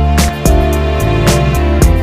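Background music: an instrumental track with a steady beat and sustained pitched instruments.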